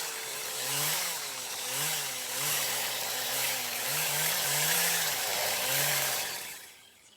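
A power saw cutting, its motor pitch rising and falling about once a second as it bites, over a harsh hiss of cutting noise; it dies away near the end.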